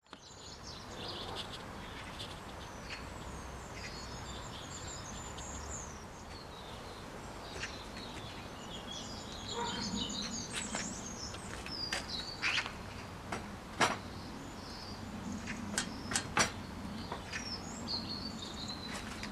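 Garden birds chirping and singing over outdoor background noise, with several sharp knocks in the second half as a wooden frame is handled and set down on portable workbenches.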